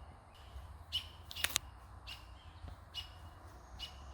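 A bird giving short, high calls, repeated about once a second, with a single sharp click about a second and a half in.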